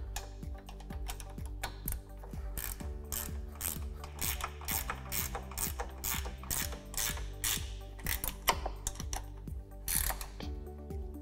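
Ratcheting wrench clicking in quick, irregular runs as a windshield mounting bolt is tightened, over a steady background music bed.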